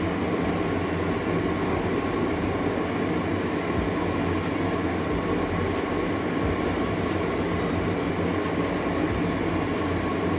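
Dried red chillies and nigella seeds sizzling in a little hot oil in a kadai over a gas burner: a steady, even frying hiss with a low hum under it and a few faint crackles in the first second or two.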